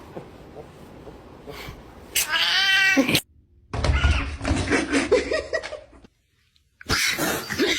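Domestic cat yowling and meowing: a long, wavering call about two seconds in, then more loud, drawn-out calls, each broken off abruptly.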